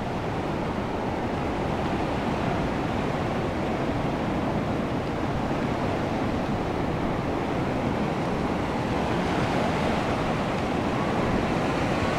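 Ocean surf breaking and washing in over a rocky shore, a steady rush of sea noise.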